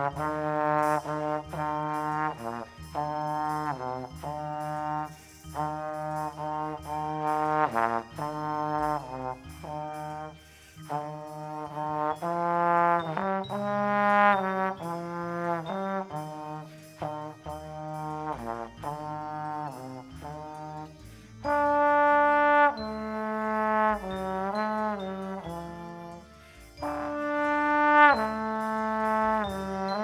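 Slide trombone playing a solo melody in phrases of separate notes with short breaks, swelling to two louder held notes in the last third.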